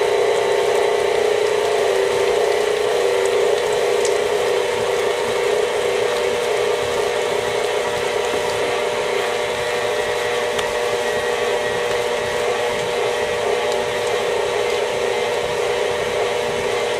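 KitchenAid stand mixer running at a steady speed with a constant hum, its beater working eggs into choux pastry dough in a stainless steel bowl.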